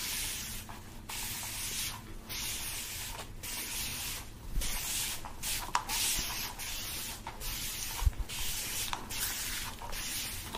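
Rhythmic rubbing strokes on the microphone, about one a second, each a scratchy hiss, as in haircut-roleplay brushing.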